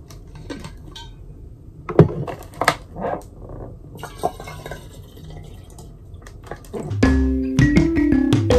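A few sharp clicks and knocks as a plastic water bottle and an insulated water bottle are handled and opened. About four seconds in, water pours from the large plastic bottle into the insulated bottle. Background music comes in near the end.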